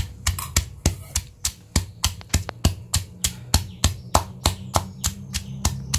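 Stone pestle pounding garlic cloves and soaked dried shrimp in a stone mortar, about three steady strikes a second.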